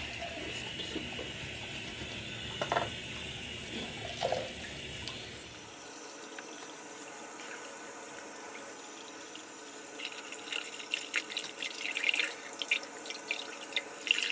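A bathroom sink tap running, a steady hiss of water. In the last few seconds it is broken by a quick run of splashes and clicks as water is handled at the sink.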